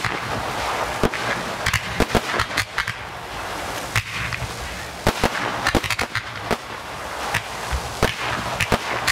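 Fireworks going off in quick succession: an irregular string of sharp bangs, several a second, over a steady hiss.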